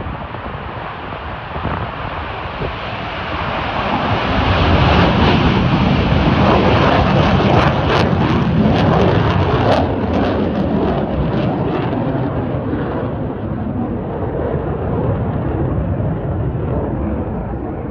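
Mitsubishi F-2 fighter's single F110 turbofan at takeoff power: loud jet engine noise that builds about four seconds in as the jet rolls and lifts off, with sharp crackles near the middle, then slowly fades as it climbs away.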